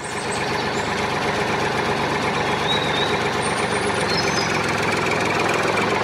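A heavy vehicle's diesel-type engine running steadily at idle, coming up over the first second and then holding an even drone.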